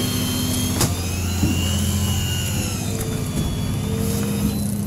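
A fishing boat's engine running steadily with a low drone, with a single sharp click about a second in.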